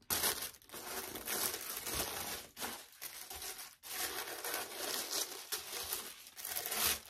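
White tissue paper in a shoe box rustling and crinkling as it is unfolded and pushed aside by hand, in several spells with short pauses.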